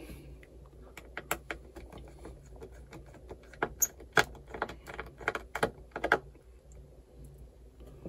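Irregular small clicks and taps of a precision screwdriver working on tiny screws as the last screw comes out of a laptop's plastic bottom panel.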